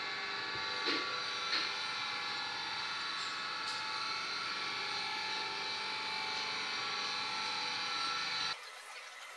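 A steady machine drone made of many held tones stops abruptly about eight and a half seconds in. Over it, near the start, come two light metal clicks as valves are set into the cylinder head's guides.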